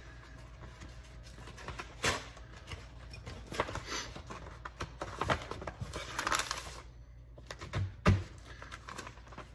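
Paper and a cardboard shipping package rustling and scraping in irregular bursts as the package is handled and opened, with a sharp thump near the end.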